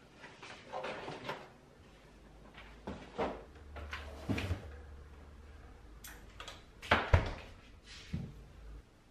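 Kitchen handling sounds: a series of knocks and clunks as ingredients are set down on the countertop, the loudest about seven seconds in, with a low hum through the middle stretch.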